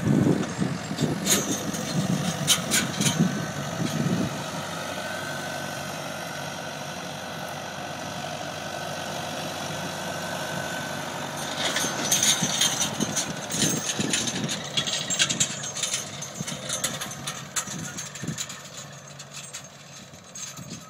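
John Deere tractor's diesel engine running steadily as it tows a Duncan MK3 Renovator seeder past. It is loudest at first, breaks into bursts of clatter from about twelve seconds in, and fades near the end as the tractor pulls away.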